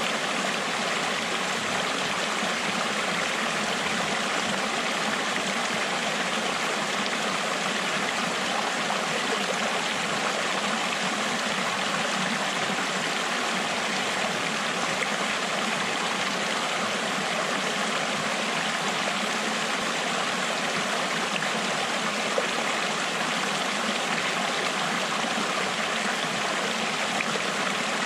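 Shallow mountain creek rushing steadily over flat rock ledges and small cascades.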